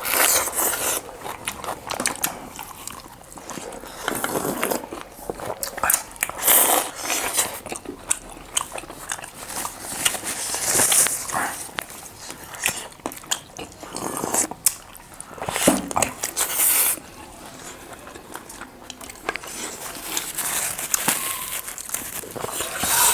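Close-up eating sounds: biting into and chewing meat lollipops, with irregular crunches, wet mouth noises and sharp clicks.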